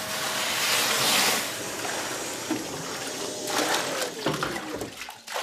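Kärcher wet-and-dry vacuum sucking water out of a sink, a loud steady hissing slurp of air and water. About three and a half seconds in the motor is switched off and its whine slides down in pitch, leaving a few splashes and drips.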